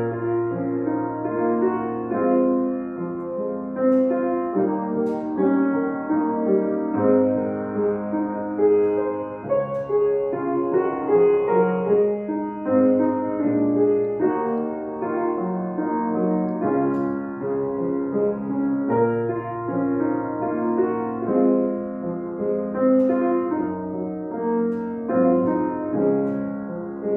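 Grand piano playing a solo piece: long held bass notes under a melody of shorter notes.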